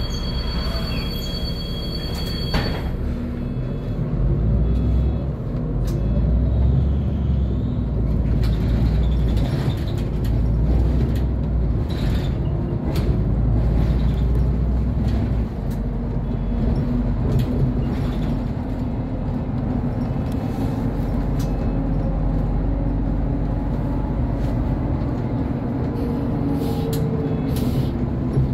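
SOR NB 12 city bus heard from the front of the cabin, its engine pulling away from a stop and then running steadily along the road. A steady two-tone beep sounds for the first few seconds and then stops.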